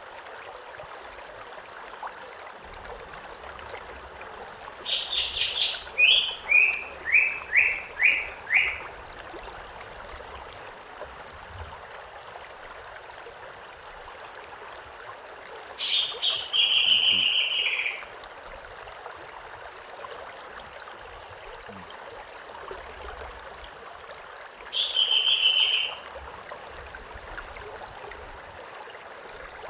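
Stream water running steadily, with a songbird singing three separate phrases. The first, about five seconds in, is a run of quick repeated notes; the second comes around the middle; a short one follows near the end.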